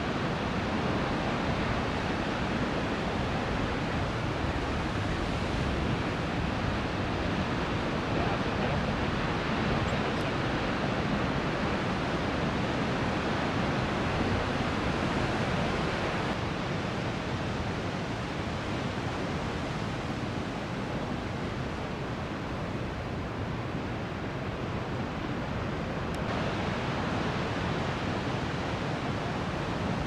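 Heavy 7–9 ft ocean surf breaking: a continuous, even wash of surf noise.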